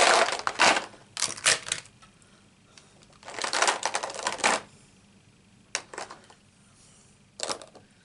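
Plastic alcohol marker pens clattering against each other and a clear plastic storage box as they are picked up and moved: two rattling bursts, the second about three and a half seconds in, then a few single sharp clicks.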